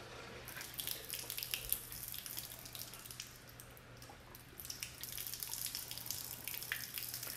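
Water running out of a drain fitting under a pressure-washer truck's skid and splashing on concrete, with scattered drips; the stream picks up about halfway through. It is flush water forced through the booster pump to purge air and prime it. A faint steady hum runs underneath.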